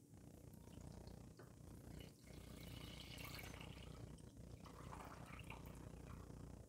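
Milk poured in a stream into a stainless steel cooking pot, a faint splashing pour as the pot fills, with a brief break about two seconds in.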